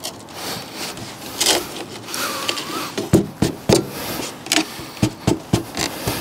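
Window glass of a Land Rover Defender rear door being worked down inside the bare steel door shell: scraping of the glass in its channels and a string of knocks and rattles of glass against metal, coming a few a second in the second half, with a brief wavering squeak about two seconds in.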